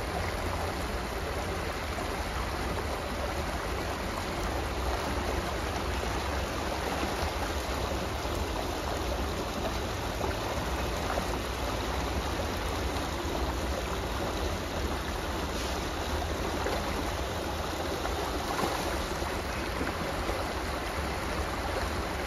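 Shallow creek water rushing steadily over rocks in a small riffle, with a steady low rumble underneath.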